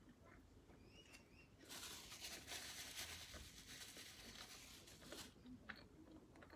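Paper napkin rustling and crackling for a few seconds as it is wiped across the mouth, starting about two seconds in. A few faint short high chirps come just before it.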